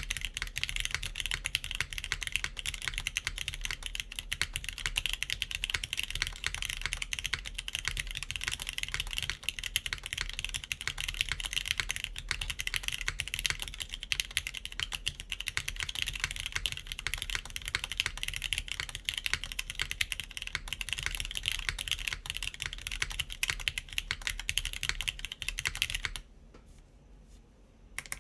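Fast, continuous typing on a KBDfans Tofu60 3.0 mechanical keyboard in top-mount configuration, with TypePlus NK Classic Blue switches under GMK keycaps on a PEI plate. The typing stops about two seconds before the end, then a few keystrokes resume.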